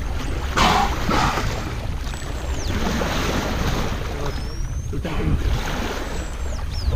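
Sailboat's bow wave rushing and splashing as pilot whales ride close under the bow, with wind buffeting the microphone. Two louder splashing rushes come about half a second and a second in.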